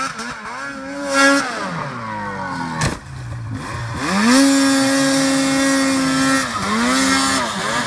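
Two-stroke snowmobile engine revving hard in deep snow, its track spinning and throwing snow. The pitch rises and falls in several revs, then climbs about four seconds in and holds high for around two seconds before dropping away. A single sharp click comes just before three seconds.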